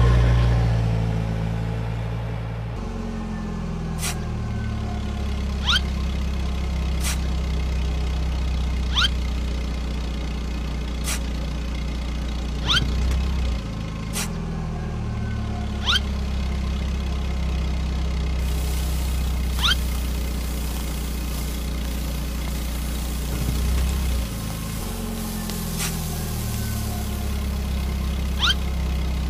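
Steady low engine drone like a heavy machine idling, shifting in pitch a few times, with short sharp rising squeaks every second or two.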